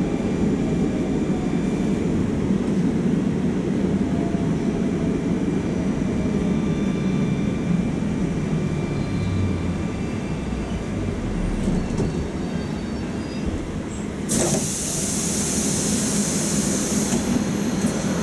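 Interior of a Moscow metro Oka train car at a station stop: a steady low rumble of the train. About 14 seconds in a loud hiss of air starts suddenly and lasts about three seconds.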